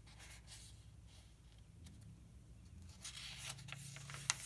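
Quiet rustling of a paperback book's pages being handled, louder in the last second and a half, with a sharp click near the end, over a faint low hum.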